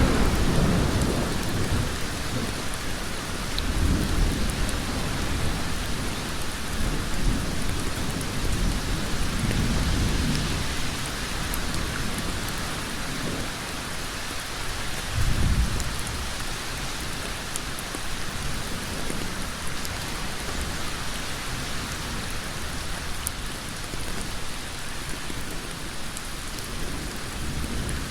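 Heavy rain falling steadily on a road, a dense even hiss. A deep low rumble swells up several times beneath it, most sharply a little past halfway.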